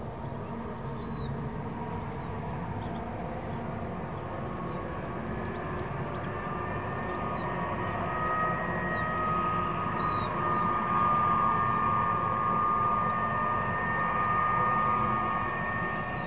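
Distant diesel freight locomotives working a long train, a low rumble with a steady high whine that grows louder over the first ten seconds or so and then holds. Faint short bird chirps are heard every second or two.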